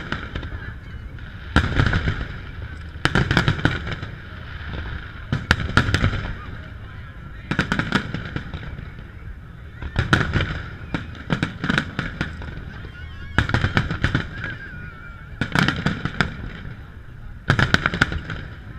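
Aerial fireworks shells bursting in volleys of several sharp bangs, one volley every second or two, with quieter gaps between.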